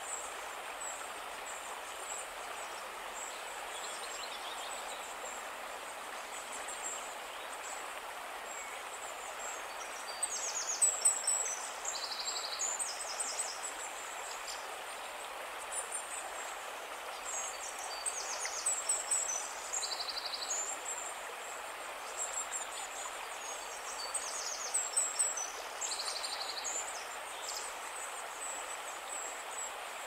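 Steady rush of flowing river water. Over it, from about ten seconds in, small birds sing high trilled phrases that recur every second or two.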